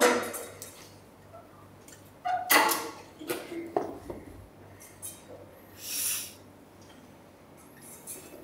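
Cable machine in use: metal clanks and clinks from the weight stack and cable handles, a sharp one at the start and a cluster with a brief metallic ring a few seconds in, then a short hiss near the middle.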